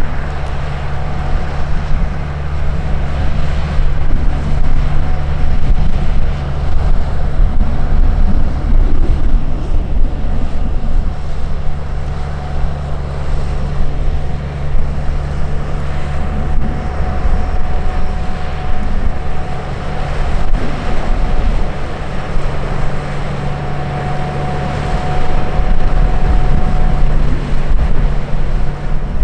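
The inboard diesel engine of a small fishing boat running steadily as it passes close by: a low, even drone with a faint steady whine above it, and water washing off the bow.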